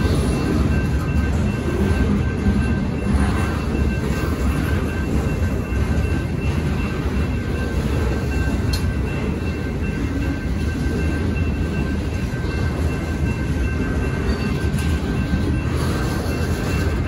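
Freight train boxcars rolling steadily past a grade crossing, a continuous low rumble of steel wheels on rail with a few faint clicks.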